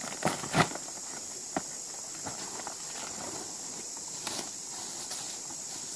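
A few irregular short knocks, the loudest two in the first second, over a steady high hiss.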